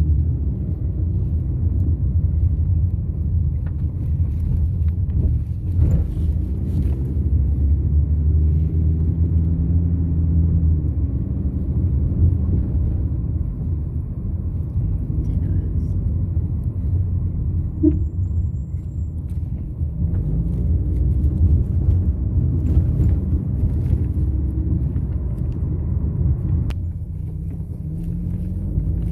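A car being driven, heard from inside the cabin: a steady low rumble of engine and road, with the engine note slowly rising and falling as the car speeds up and slows.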